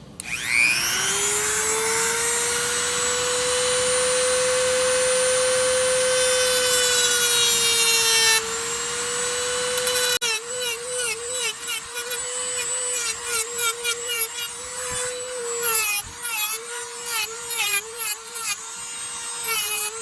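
Dremel rotary tool spinning up with a rising whine, then running at a steady high pitch. From about halfway, its pitch dips again and again under load with a scratchy grinding as it cuts into the top of a fuel sender unit.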